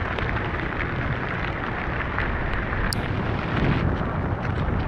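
Wind buffeting the microphone over steady falling rain, with scattered raindrop ticks and one sharp tick about three seconds in.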